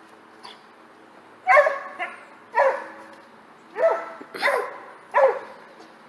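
A dog barking, about six short barks roughly a second apart, starting about a second and a half in.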